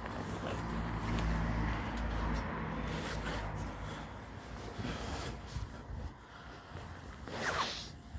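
Low engine hum, as of a motor vehicle running nearby, steady for about four seconds and then fading. A brief, louder noise comes near the end.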